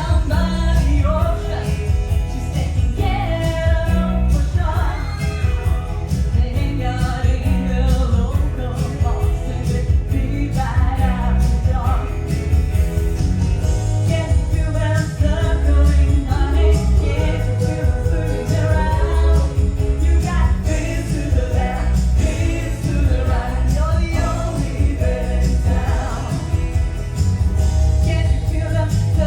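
Music with a singer over a steady, heavy bass beat.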